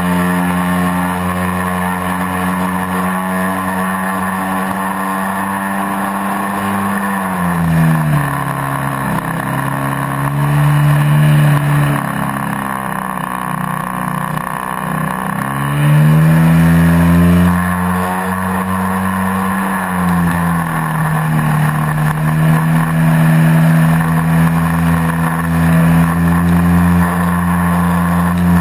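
Piper light aircraft's piston engine and propeller running steadily in flight while towing a glider. About eight seconds in the engine note falls lower, then rises back to its earlier pitch around sixteen seconds in.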